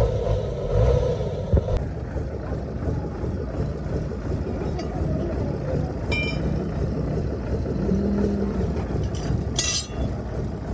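Steady low mechanical rumble, with a single ringing metallic clink about six seconds in and a short hiss near the end.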